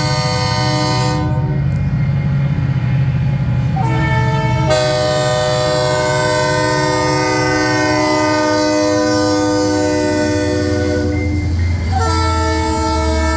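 Diesel locomotive's multi-note air horn sounding in long blasts. It stops about a second and a half in, sounds again for about eight seconds from about four seconds in, breaks off briefly near the end and sounds once more. The locomotive's low engine rumble runs underneath.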